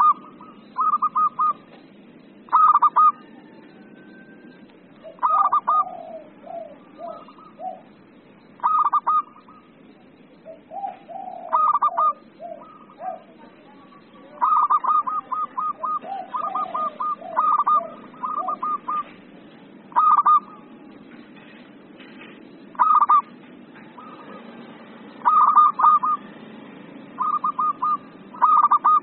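Zebra dove (perkutut) in excited song: short bursts of rapid, stuttering coo notes repeated every few seconds, with runs of softer, lower notes between some bursts.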